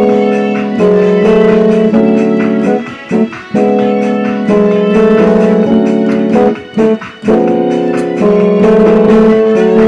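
Digital keyboard played in chords, with an organ-like sound whose notes hold steady instead of fading. The chords change every second or two, with brief breaks.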